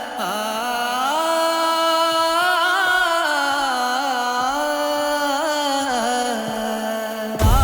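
Film background score: a melody with sliding, ornamented pitch in an Indian classical style. Near the end a deep bass comes in and the music grows louder.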